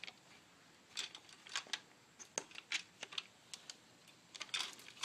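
Irregular light clicks and clinks of metal engine parts and hand tools being handled, coming in small clusters.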